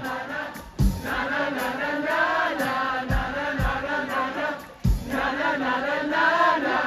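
Concert crowd singing along in chorus with a live rock band, with a few deep kick-drum thumps.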